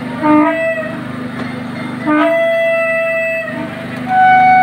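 Three horn blasts, each a steady pitched tone: a short one near the start, a longer one about two seconds in, and a higher one near the end that runs on. A steady engine hum runs beneath.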